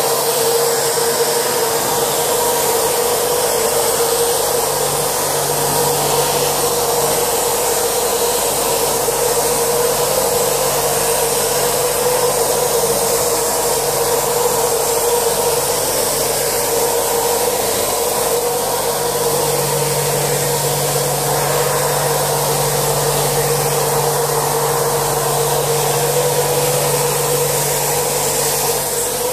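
Flocking machine blowing sprayed insulation through its hose onto a ceiling: a steady rush of air over a constant motor whine, with a lower hum that drops out and comes back a few times.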